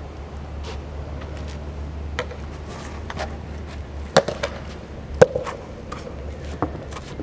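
A rubber handball being slapped by hand and bouncing off the pavement and brick wall in a game of Chinese handball. Two sharp smacks about a second apart come a little past the middle, each with a short ring, with fainter taps around them over a steady low rumble.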